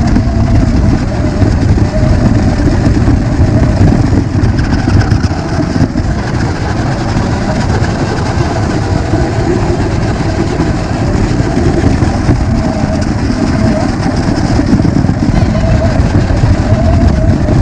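RC rock crawler driving over rough ground: its electric motor and gearbox running with a steady loud rumble and rattle.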